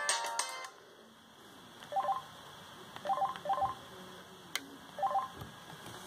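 Mitsubishi M342i mobile phone: a polyphonic ringtone melody playing for under a second and cutting off, then four short electronic keypad beeps as keys are pressed.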